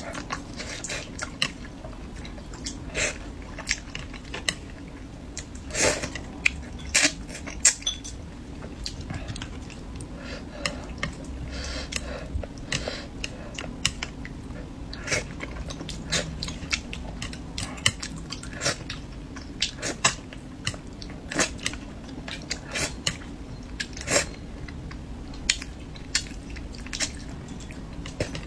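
Close-up eating: chewing and wet mouth clicks as food is eaten, with now and then a clink of a utensil against a dish. The sharp clicks come irregularly, one or two a second.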